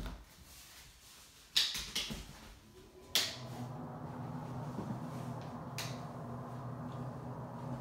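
A few door clicks and knocks, then a sharp switch click about three seconds in, and at once a steady low hum sets in: a bathroom extractor fan switched on and running.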